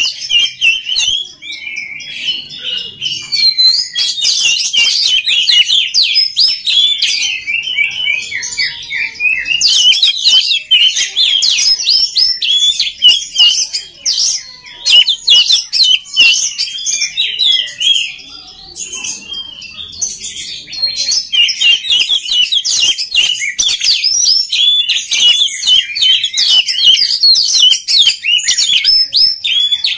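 Oriental magpie-robin (kacer) singing a fast, continuous stream of sharp chirps and whistled notes, with a few short lulls.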